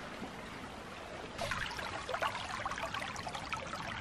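Shallow creek running over stones: a steady trickle that gets louder and more gurgling about a second and a half in.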